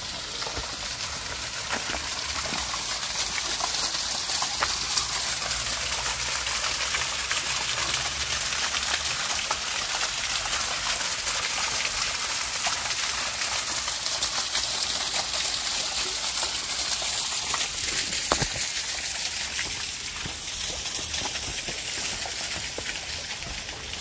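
Small waterfall splashing into a rock pool: a steady rush of water, louder through the middle and easing off near the end.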